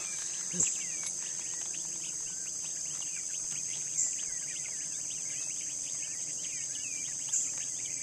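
Many young quail peeping over one another in short rising and falling chirps, over a steady high insect chorus. Three brief louder bursts stand out, about three and a half seconds apart.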